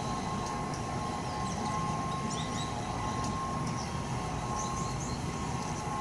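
Steady mechanical rumble of a self-control plane amusement ride running, with a steady whine and scattered short high chirps.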